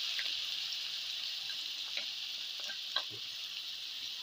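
Chopped onion sizzling in hot oil in a kadhai, the hiss slowly dying down after the onion goes in. A few light knocks as a wooden spatula scrapes the rest of the onion from the bowl.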